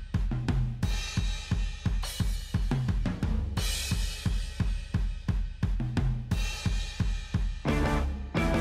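Background music: a rock-style track with a steady, driving drum-kit beat of kick, snare, hi-hat and cymbals over a bass line.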